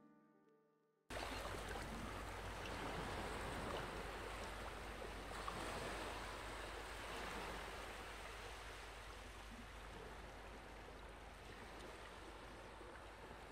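The last note of background music dies away, then about a second in a steady rushing noise, like running water, cuts in abruptly and slowly grows quieter.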